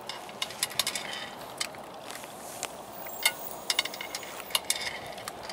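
A dog eating dry kibble from a bowl: irregular crunches and clicks of the pellets, with no steady rhythm.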